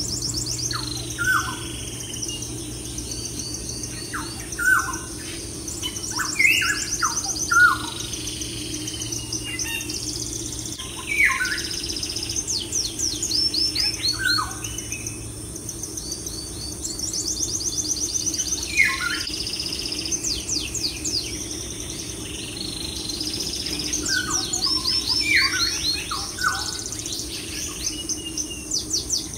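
Birds singing: clusters of short downward-sweeping whistles and fast high trills every few seconds, over a steady low hum.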